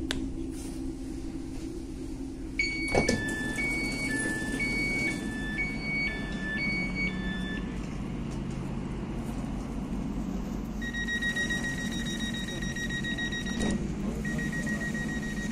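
Tram-train passenger door opening after its button is pressed: a knock as the door releases, then a two-tone chime alternating high and low about five times. Later a steady warning tone sounds for several seconds, with one short break.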